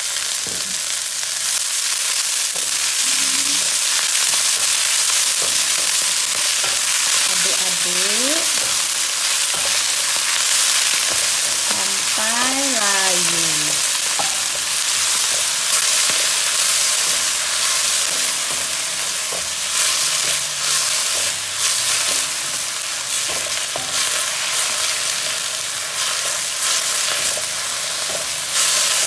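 Chopped binahong (Madeira vine) leaves and stems sizzling steadily in hot oil in a metal wok, stirred and scraped with a wooden spatula.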